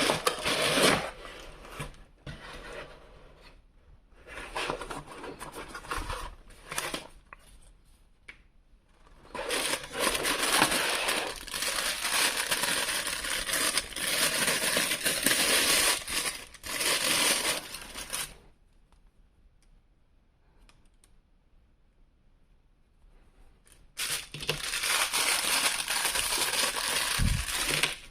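Toy packaging being opened and handled: cardboard and plastic rustling and crinkling in repeated bursts, with a pause of near quiet about two-thirds of the way through.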